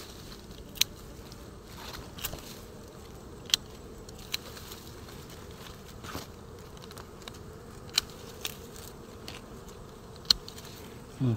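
Dwarf honeybees buzzing steadily around their exposed comb. About six sharp snips of hand pruning shears are spread through it as stems around the nest are cut.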